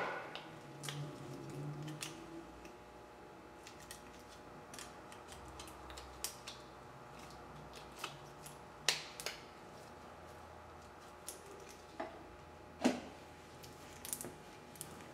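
Light, scattered metallic clicks and taps of a brake pad and caliper mounting bracket being handled, with two sharper knocks, about nine and thirteen seconds in.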